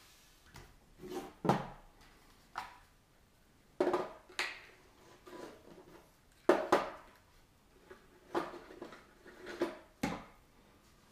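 Hard plastic parts being handled and set down on a tabletop: a dozen or so irregular knocks and clatters, unevenly spaced, the loudest about two thirds of the way in.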